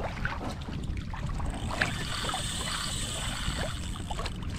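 Water lapping and splashing against a kayak's plastic hull, with wind rumbling on the microphone and small scattered knocks.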